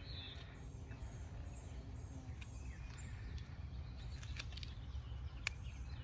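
Outdoor ambience: faint, scattered bird chirps over a steady low rumble, with a sharp click about five and a half seconds in.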